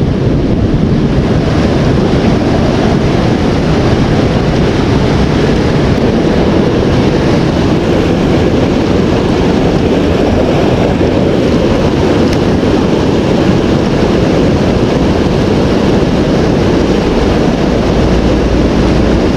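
Steady rushing of river water below a dam, with wind buffeting the microphone. Near the end, a deeper rumble comes up.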